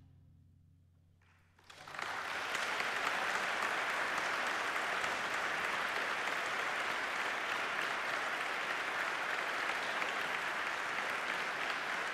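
The last low notes of a concert band's final chord fade into a hush, then an audience bursts into applause about a second and a half in, which holds steady.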